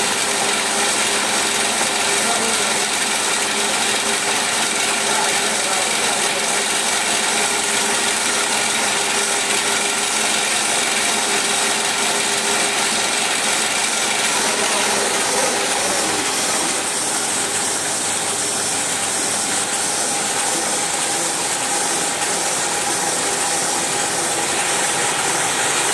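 Hamada 700 offset printing press running steadily on a trial run after repair, an even, continuous mechanical noise that dips slightly in level for a few seconds past the middle.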